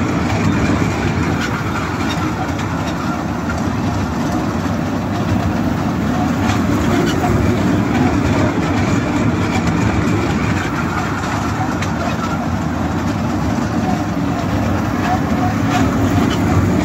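Small fairground kiddie train running around its circular track: a steady rumble of the little cars on the rails, with crowd voices in the background.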